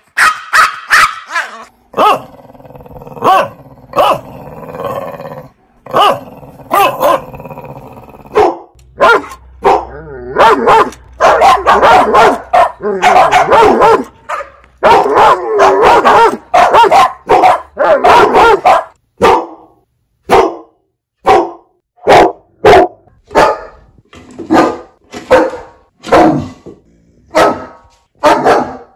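A dog barking loudly over and over. Through the middle the barks come in dense runs; near the end they come singly, about one a second.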